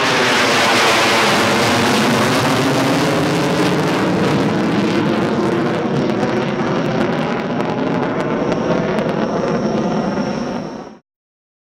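Panavia Tornado's twin RB199 turbofans in afterburner as the jet passes overhead and climbs away: a loud, steady roar with a slowly sweeping, phasing hollowness, fading a little as it recedes and cutting off abruptly near the end.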